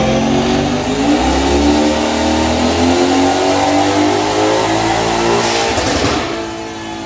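Mercedes-AMG C63 S twin-turbo V8, exhausting through catless downpipes, at full throttle on a chassis dyno, its note climbing steadily in pitch for about five seconds. About five and a half seconds in comes a short rush of noise, and the engine note then drops as it comes off the pull.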